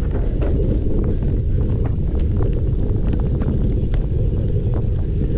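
Wind buffeting the microphone of a rider's camera on a cyclocross bike, a loud steady rumble. Scattered sharp clicks and rattles from the bike running over rough ground come through it.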